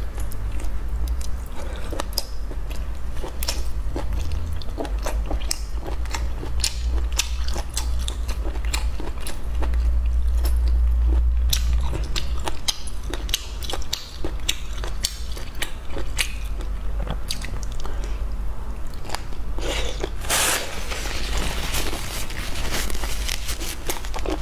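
Close-miked chewing and biting of a cooked baby octopus: a continual run of wet clicks and crunches. A louder rush of noise comes about twenty seconds in, all over a steady low hum.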